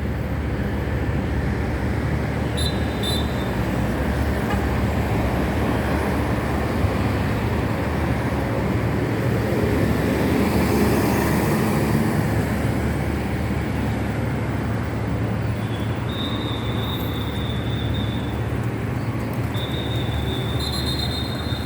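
Street traffic noise: a steady rush of passing cars over a constant low hum, swelling as a vehicle goes by about halfway through. Short high, steady squeals, like brakes, sound briefly early on and twice more near the end.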